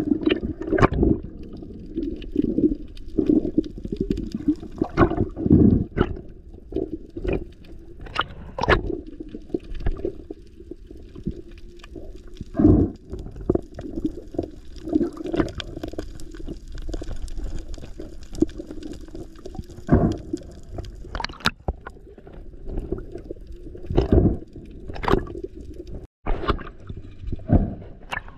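Muffled underwater sound from a camera carried by a swimming spearfisher: a steady low water rush, with irregular knocks and taps scattered throughout.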